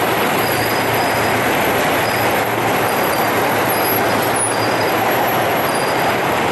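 Steady, loud noise of a column of vehicles passing close by on the road, engines and tyres running together.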